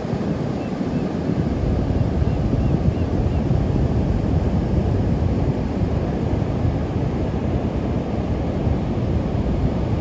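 Ocean surf breaking offshore and washing up the flat sand in a steady rush of water, with a low rumble of wind on the microphone.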